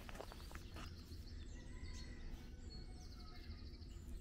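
Songbirds singing, faint scattered chirps and whistles with a short fast trill about three seconds in, over a low steady rumble.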